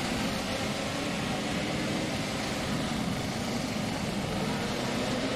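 Motorcycle engines running at idle over a steady wash of outdoor noise, their faint tones wandering slightly in pitch.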